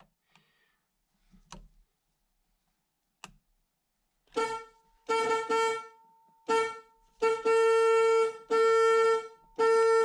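Car horn of a 1976 Chevrolet Camaro blaring in repeated blasts as the horn button is pressed at the new steering wheel's centre cap, after a couple of faint clicks: first three short honks, then three longer ones about a second each. The button is sticking, so the horn keeps sounding.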